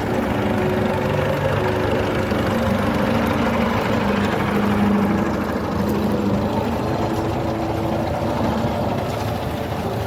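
Tractor engine running steadily, its pitch shifting slightly up and down.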